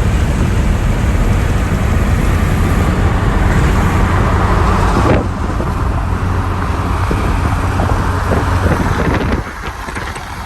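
Truck driving, heard from inside the cab: a steady low rumble of engine and road noise with a hiss over it. It eases a little about halfway through and drops suddenly near the end.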